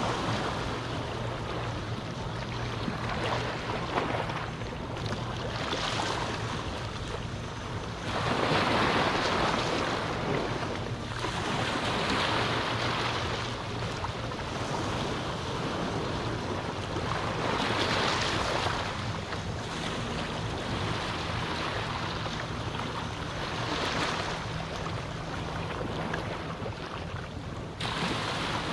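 Small waves on a calm sea washing up onto a sandy beach, the surf swelling and fading every few seconds, with the strongest surges about eight and eighteen seconds in.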